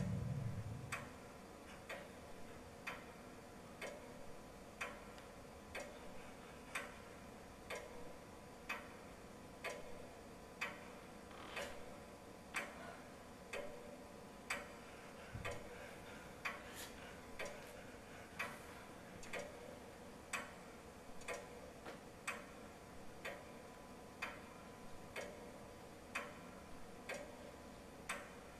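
Faint, even ticking, about one tick a second, over a low steady hum. A low rumble dies away in the first second.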